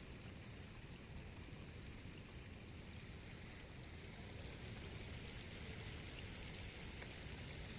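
Steady rush of water running high after prolonged rain, an even noise without breaks.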